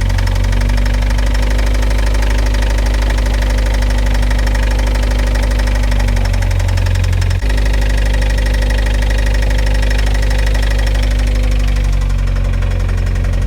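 Car engine running at a steady idle with a knock, which the owner puts down to a worn gap at the bearing. The sound breaks off for a moment about seven seconds in.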